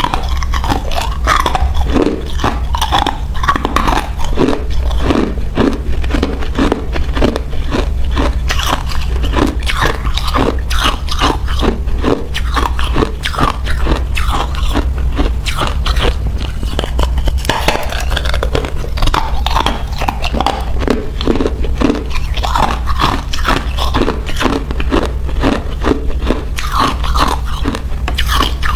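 Crushed ice being bitten and chewed: a dense, irregular run of crisp cracks and crunches several times a second, over a steady low hum.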